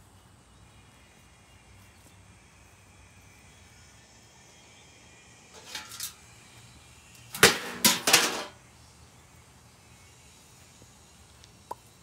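Two light knocks about halfway through, then three loud bangs in quick succession within about a second, and a single small click near the end.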